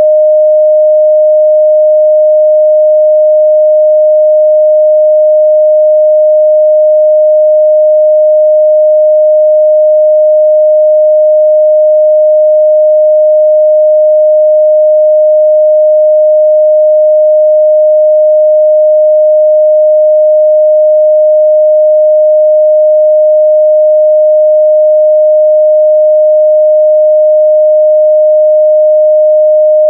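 A steady, loud 614 Hz sine-wave test tone, one pure pitch held without change.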